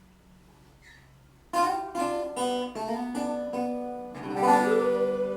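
Quiet for about a second and a half, then a guitar starts: a run of separate plucked notes, followed by a louder held chord with a note sliding up in pitch.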